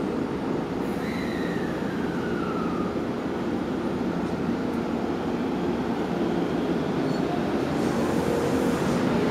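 JR West 223 series electric train running steadily at the platform with a constant hum, and a falling whine about a second in. Toward the end the sound grows louder and a hiss comes in as the train gets under way.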